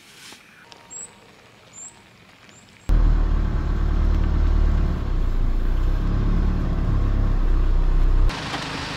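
Three faint, short high chirps over a quiet background. Then, about three seconds in, a loud, steady low rumble of a car driving starts suddenly and cuts off shortly before the end.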